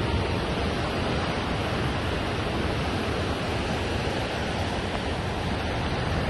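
Ocean surf breaking and washing onto a sandy beach, a steady rushing noise, with wind on the microphone.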